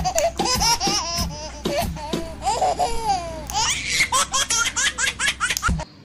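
High-pitched laughter like a baby's giggling, in quick repeated short peals with sharp clicks between them, stopping abruptly just before the end.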